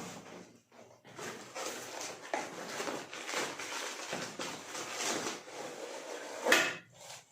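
Rustling and scraping of packaging as a ceiling fan blade is pulled out of its box, with one louder scrape near the end.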